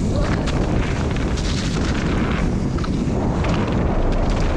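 Mountain bike riding down a muddy trail: a steady loud rumble of wind buffeting the microphone and tyres on the dirt, with clicks and rattles from the bike over bumps.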